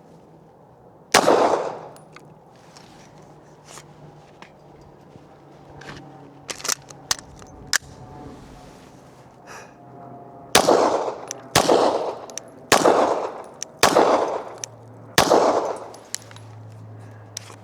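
Glock 17 9mm pistol firing single deliberate shots: one shot about a second in, then after a long pause a string of five shots about a second apart, each with a ringing echo. Fainter sharp clicks fall in the gap between the first shot and the string.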